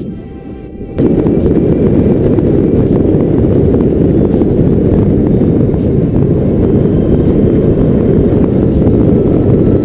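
Motorcycle riding on a gravel track heard through a bike-mounted camera's microphone: a loud, steady low wind rumble over the engine and tyre noise, starting abruptly about a second in.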